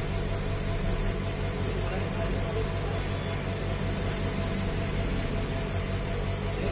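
Hot air rework station blowing a steady rush of air with a low electrical hum, heating a phone mainboard to solder the CPU chip back on.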